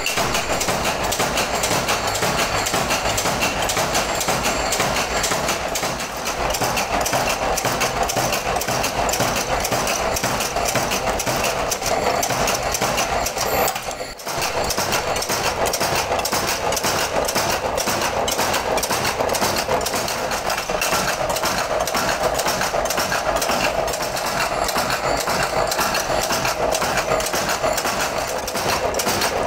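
Flywheel-driven mechanical power press running continuously, its ram knocking in a fast, even rhythm over the steady hum of its drive.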